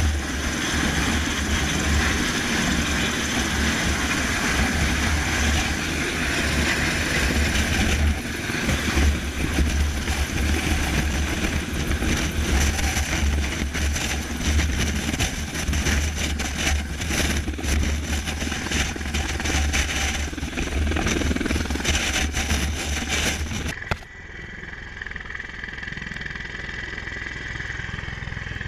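Bell Boeing V-22 Osprey tiltrotor's engines and rotors running loud, a deep steady drone that turns rougher and crackly from about eight seconds in. About 24 seconds in it cuts suddenly to a quieter, duller engine drone.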